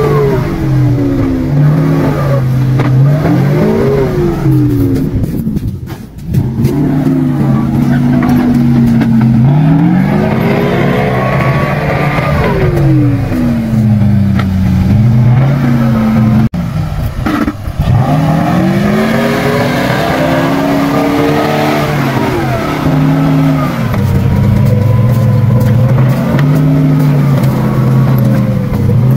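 GAZ-66 truck's engine working hard through deep mud and slush, its revs rising and falling again and again every few seconds. It drops off briefly twice, about six seconds in and a little past the middle.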